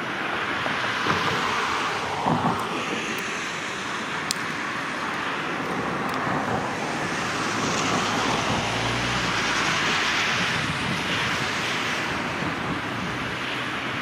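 Steady rushing of shallow river water mixed with road traffic noise, with a low rumble swelling and fading around the middle as a vehicle passes.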